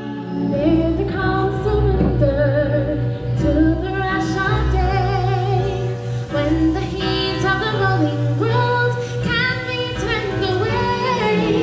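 Live stage-show music with a woman singing, over a steady accompaniment.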